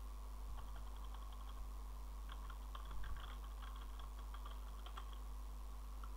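Computer keyboard typing: a short run of keystrokes near the start, then a longer run from about two seconds in. A low steady hum runs underneath.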